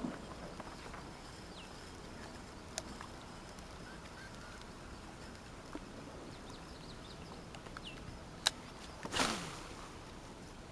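Quiet outdoor ambience with faint bird chirps and a few small clicks. Near the end comes a sharp click, then a brief rushing noise that falls in pitch.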